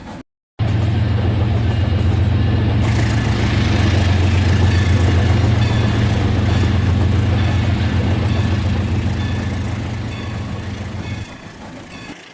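Battery-powered Rail King toy train running on its track: a loud, steady low rumble of motor and wheels, with faint short electronic tones above it. The rumble falls away near the end.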